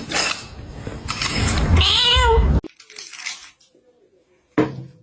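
A cat meowing: one drawn-out meow that bends in pitch about two seconds in, then cuts off suddenly.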